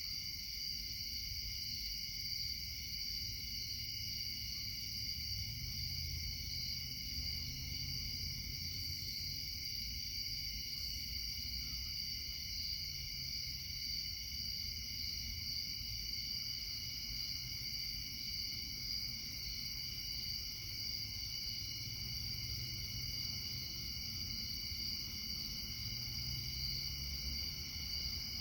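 Steady insect chorus, a continuous high-pitched trilling on several pitches at once, over a low rumble.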